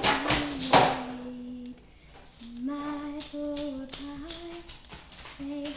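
A young girl singing a tune in long held notes that step up and down in pitch, with a short pause about two seconds in. Two loud, noisy bursts come right at the start.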